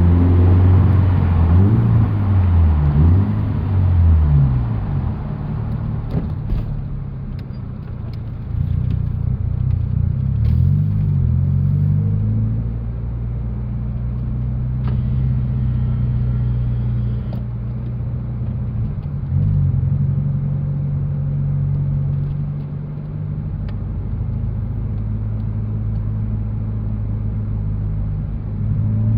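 Toyota 86's flat-four boxer engine through an aftermarket BE FREE muffler with its silencer baffle fitted, heard from inside the cabin: the exhaust note rises and falls with throttle and gear changes over the first dozen seconds, then settles into a steady low drone.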